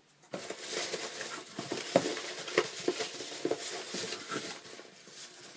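Packaging being handled and unwrapped, a continuous crinkling rustle with many small clicks.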